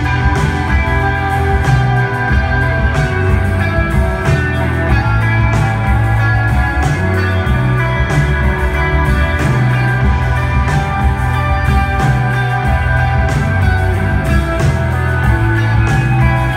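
Live dream-pop band playing loudly: electric guitar over a bass line that steps between notes every second or two, with steady drum hits.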